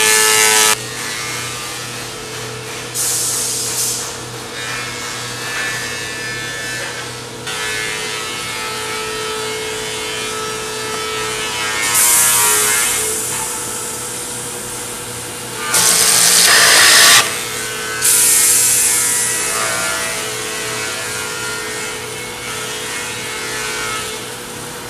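Woodworking machinery on a wooden cable drum production line, running with a steady hum and broken by several short, loud bursts of machining noise; the longest, about a second and a half, comes about two-thirds of the way through.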